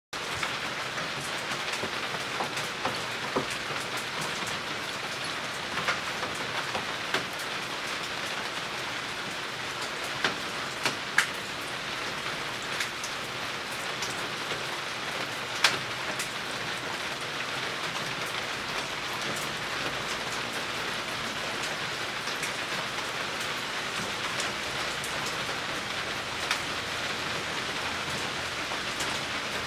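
A steady hiss of noise, with a few sharp light knocks scattered through the first half from a goat kid's hooves on a wooden floor and a plastic litter tray.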